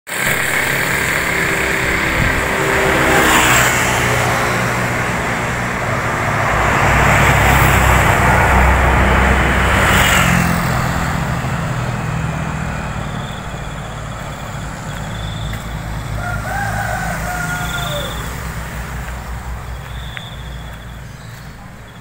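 Motorbikes and other road traffic passing close by, with the loudest passes a few seconds in and again around the middle, then fading away. In the second half a rooster crows once and a small bird chirps every couple of seconds.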